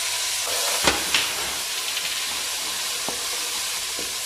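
Hot oil sizzling in an aluminium pot as ginger-garlic paste and spices are fried with browned onions and stirred with a wooden spoon. A few sharp clicks stand out, about a second in and again near three seconds.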